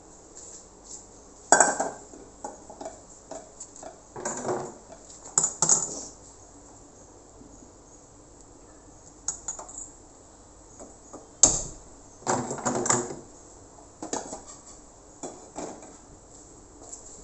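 Kitchen clatter of a saucepan and utensils being handled, knocked and set down, in a few separate bursts with quiet gaps between; the sharpest knocks come about a second and a half in and again about eleven seconds in.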